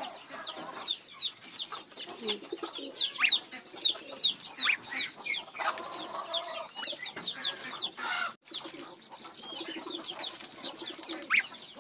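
Penned native chickens clucking, with many short, high, falling chirps heard throughout.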